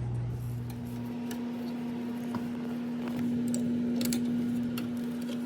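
A steady low electrical hum that shifts to a higher pitch about a second in, with scattered light ticks and clicks.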